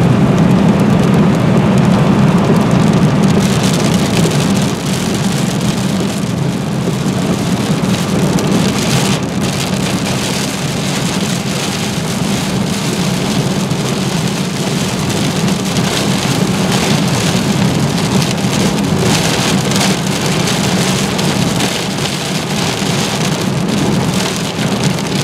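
Heavy rain beating on a moving car's windshield and roof, heard from inside the cabin over a steady low hum of road noise.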